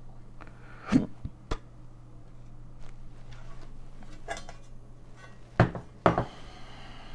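Thin sheet-metal cover of a computer power supply case being handled and set down on a wooden board: a knock about a second in, then two louder metallic clanks near the end.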